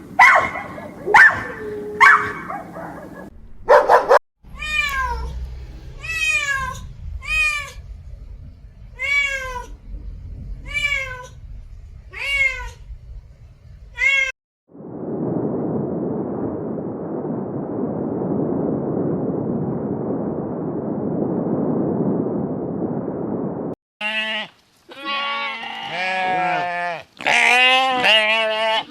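A dog yipping for the first few seconds, then a domestic cat meowing about ten times, each meow falling in pitch. A steady rushing noise follows for about nine seconds, and near the end sheep bleat.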